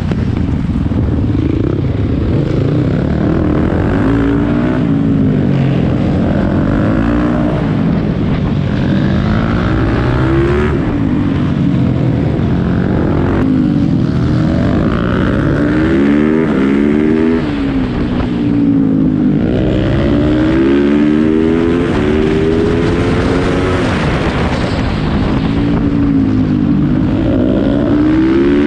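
Yamaha YZ450F supermoto's 450 cc single-cylinder four-stroke engine heard onboard at race pace, revving up through the gears again and again and dropping back between each run.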